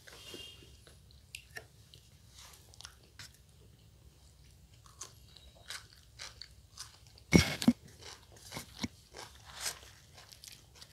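Close-up eating sounds: people chewing and biting pieces of sattu puri, with scattered small mouth clicks and smacks. One louder sharp knock about seven seconds in.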